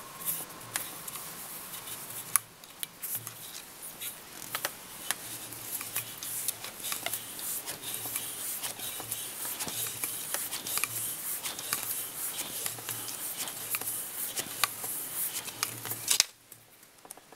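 Close handling noise of fly tying: fingers tying in thread and winding orange chenille onto a hook held in a fly-tying vise, heard as soft rubbing with many small irregular clicks. The noise drops away abruptly about a second before the end.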